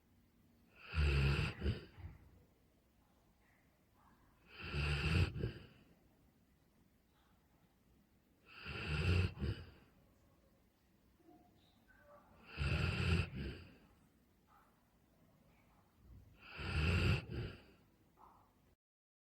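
Golden retriever snoring loudly in its sleep: five long snores, about four seconds apart, with near silence between them.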